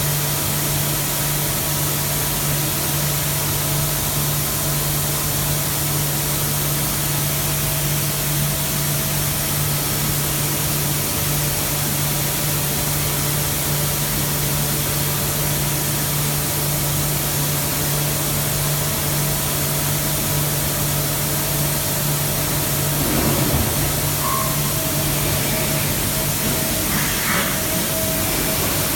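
Mazak 5-axis CNC machining center running: a steady hum with a constant hiss over it. The sound shifts a little about 23 s in, with a couple of brief sharper sounds near the end.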